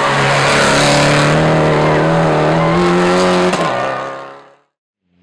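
Rally car engine running loud at high revs, its pitch holding and then rising slightly, before the sound fades away to silence shortly before the end.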